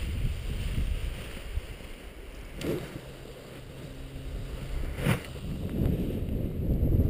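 Wind buffeting the microphone in gusts on a windy hilltop, heavier at the start and again near the end, with two short sharp noises about three and five seconds in as a paraglider wing is pulled up and falls back.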